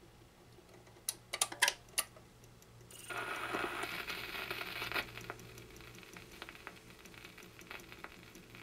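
RCA Victor 45-EY-3 record changer cycling: several sharp mechanical clicks about a second in, then a rustling clatter for a couple of seconds as the next 45 drops down the spindle and the tone arm swings in. After that come faint ticks and crackle as the stylus runs in.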